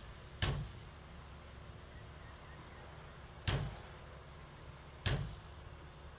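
Three sharp knocks on the aluminium canopy frame, irregularly spaced, with a fourth at the very end, over a low steady background rumble.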